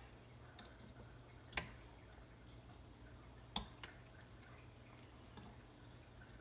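Near silence over a low steady hum, broken by two sharp clicks about two seconds apart, with a few fainter ticks around them.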